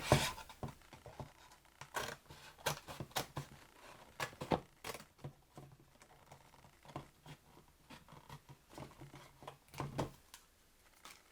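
Scissors cutting into a cardboard paper roll: a run of faint, irregular snips and clicks.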